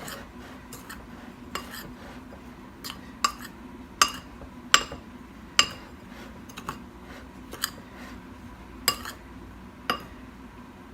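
Utensil clinking and tapping against a mixing bowl in irregular sharp knocks as dry ingredients are stirred together, over a faint steady hum.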